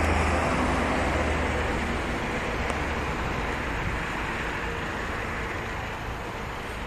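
BMW X3 2.0d's four-cylinder diesel engine idling steadily, with a low rumble that fades a little as the listener moves away from the front of the car.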